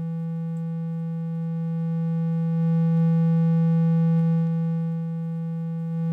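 Held low synthesizer note from a Korg Kronos, a steady buzzy tone with a stack of overtones, playing through the Kronos's Stereo Dynamics Compressor. It grows louder from about a second in as the compressor's sensitivity is turned up, eases back a little near the end, then rises again.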